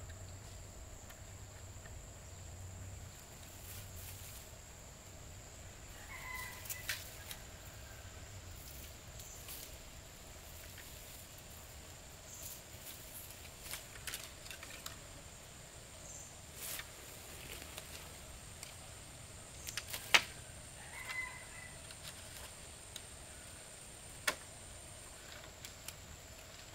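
Scattered light clicks and knocks, the sharpest about twenty seconds in, over a steady high thin hiss, with two short chirps about six and twenty-one seconds in.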